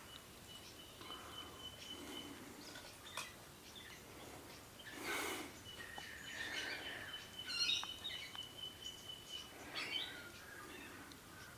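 Wild birds chirping and calling, with a thin, steady, high-pitched tone held for a couple of seconds twice. About five seconds in, a brief rushing noise is the loudest sound.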